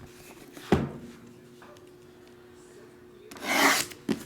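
Trading-card packaging being handled: a single thunk just under a second in, then a brief, loud crinkle of wrapper near the end.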